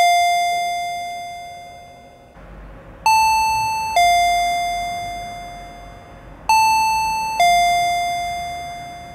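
Electronic two-tone ding-dong chime, a higher note stepping down to a lower one, each note ringing out and fading. It sounds twice more after the fading tail of an earlier ring: a shop chime rung over and over while nobody comes to the register.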